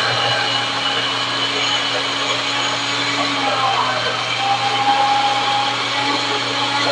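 Countertop blender running steadily on its blend setting, its motor churning a thick chickpea mixture into hummus.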